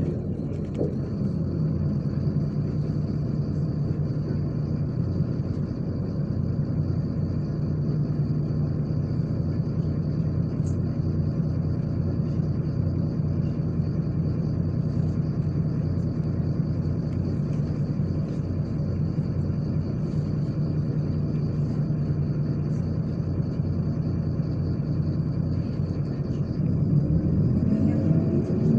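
A MAZ-103 city bus driving, heard from inside: the engine runs with a steady drone and road rumble, and near the end its revs climb as the bus pulls away and accelerates. A faint steady high-pitched whine runs underneath.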